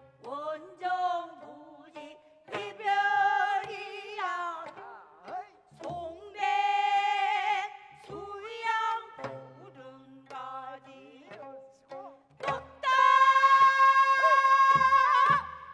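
Gayageum byeongchang: women singing in the throaty pansori style while plucking the strings of their gayageums. The song moves in long held notes with wide vibrato, broken by short gaps and plucked accents. A long, loud, high held note near the end is the loudest part.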